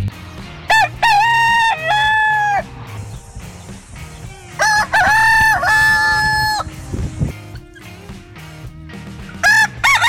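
Rooster crowing cock-a-doodle-doo: two full crows, each a quick rising start then a long held note, and a third beginning near the end.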